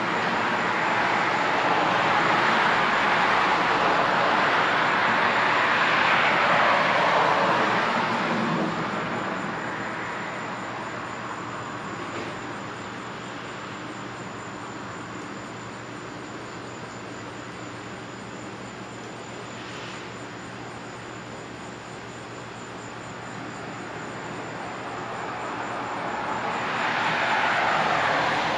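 Cars passing on a road: tyre and engine noise of one vehicle swells and fades over the first several seconds, a lower steady traffic hum follows, and a dark SUV approaches and passes near the end, the sound rising again as it goes by.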